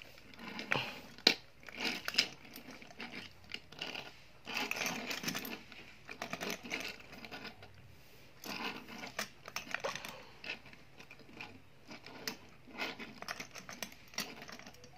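Handling noise of toy cars being moved and set down on a tabletop: a small die-cast car and a monster-truck toy shuffled around by hand, making irregular scrapes, rustles and clicks, with one sharp click about a second in.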